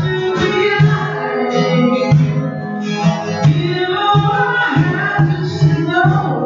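Live acoustic music: an acoustic guitar and a pair of conga drums playing a steady hand-drum beat, with a singing voice over them.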